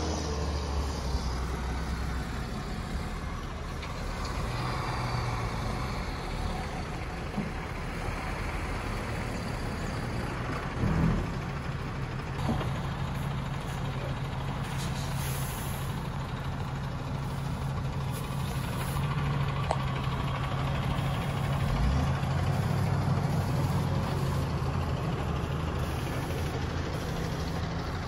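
MAN truck's diesel engine running at low speed as it hauls a low-loader trailer of boulders, the engine note shifting now and then, with one brief thump about eleven seconds in.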